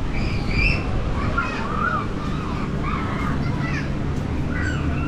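Wind buffeting the microphone in a steady low rumble, with scattered short high-pitched calls over it.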